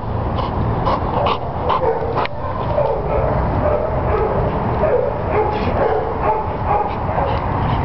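Dogs barking in shelter kennels: sharp barks in the first couple of seconds, then a denser run of wavering calls over a constant din.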